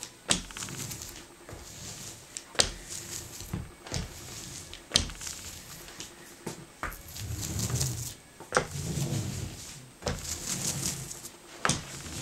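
Hand roller rolling over paper laid on pasted silk and binder's board, pressing out the air, with a low rumble in stretches. Sharp knocks and clicks come every second or so as tools and a plastic tub are handled on the worktable.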